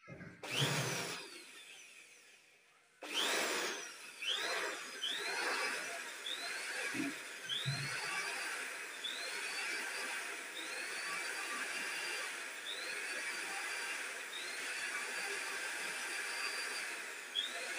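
Electric drill running with its spinning chuck wrapped in a cloth, the fabric twisting and rubbing against it. A short burst comes first, then a pause, then it runs on steadily with a rising whine every second or two as the motor speeds up again and again.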